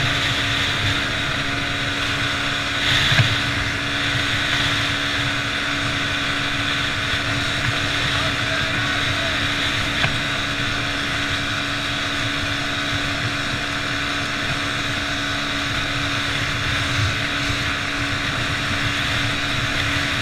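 Quad bike (ATV) engine running at a steady pitch while it is ridden along a gravel track, with tyre and rattle noise heard from an onboard camera. A knock or jolt stands out about three seconds in.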